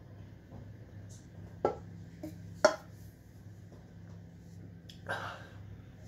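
A man taking a big mouthful of stout and swallowing: two loud sharp clicks about a second apart, then a breathy exhale near the end.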